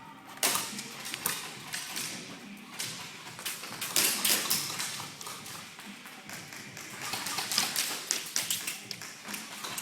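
Irregular sharp taps and clicks, coming in quick clusters, the loudest about four seconds in.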